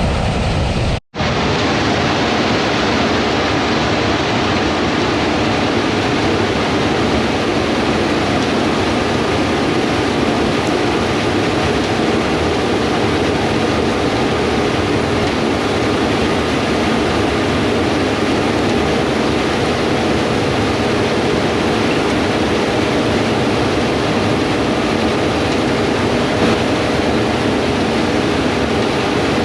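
Large diesel farm machinery running steadily under harvest load: an even, dense mechanical noise with a faint steady hum. The sound drops out completely for a moment about a second in, then carries on unchanged.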